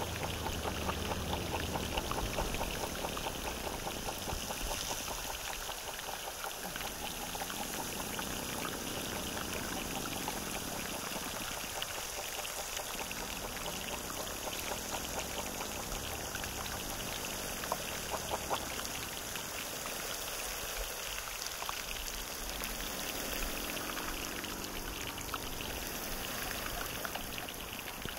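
Running water in a field recording: a steady rush with dense trickling and splashing.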